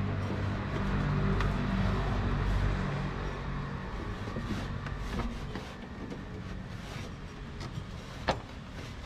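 Small clicks and rubbing as hands handle a rubber hose and fittings in a car's engine bay, with one sharp click near the end, over a steady low hum that fades somewhat after about three seconds.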